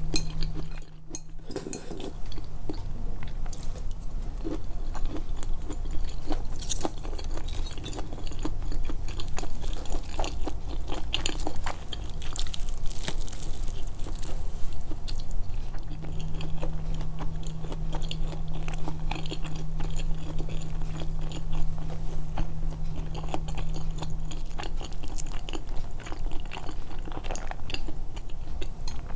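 Close-miked, amplified chewing and biting of food, with many quick wet clicks and crackles of the mouth. A steady low hum sounds alongside it for several seconds in the second half.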